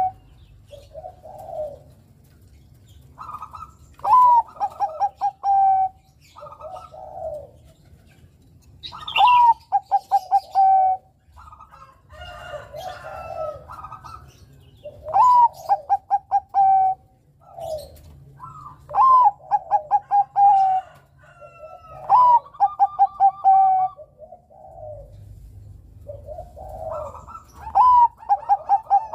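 Bangkok-type zebra dove (perkutut) singing: about six loud phrases, each a high opening note followed by a quick run of short staccato coos and a held lower note, with softer, shorter coos between the phrases.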